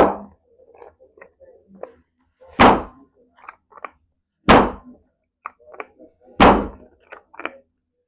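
Chiropractic adjustment strikes: a heavy thunk about every two seconds, each dying away quickly, with faint small clicks between them.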